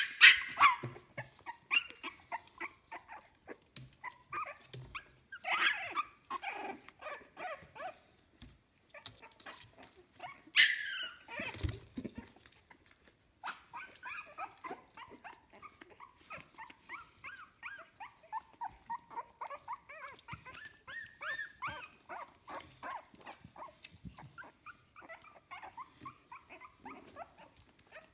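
Two-week-old Staffordshire Bull Terrier puppies squeaking and whimpering in many short, high cries, a few of them loud in the first half and a steady run of small squeaks, several a second, through the second half.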